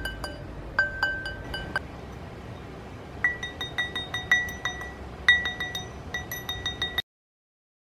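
Mallet blows on a steel ring mandrel holding a twisted silver wire ring, each strike leaving a short, clear metallic ring. They come in quick runs of several taps a second, with a brief pause between runs, as the freshly pickled ring is hammered round on the mandrel. The sound cuts off abruptly about seven seconds in.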